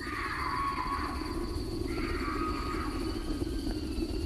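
Film sound effect of a swarm of giant mosquitoes: a low, rough buzzing drone with two screeching calls that fall in pitch, the second about two seconds after the first.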